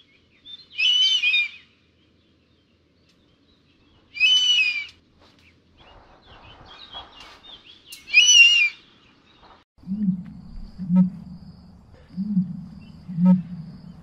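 Bald eagle calling three times, each a high, chattering whistle under a second long, about four seconds apart. From about ten seconds in, a low call from an ostrich, pulsing about once a second.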